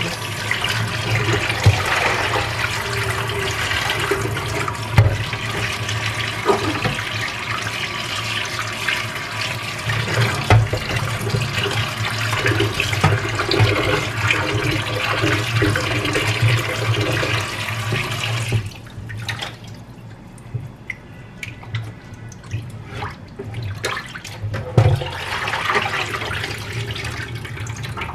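Kitchen tap running into a pan of raw chicken pieces in a stainless-steel sink, the water splashing as hands rub the chicken clean. About two-thirds of the way through the running water stops, leaving drips and small knocks, then water splashes again near the end as the pan is tipped to pour the rinse water off.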